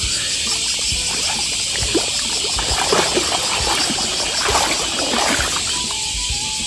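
Water splashing and streaming out of a hand net as it is swept through the riverbed and lifted clear, with sand and gravel shifting inside it, over a steady high hiss.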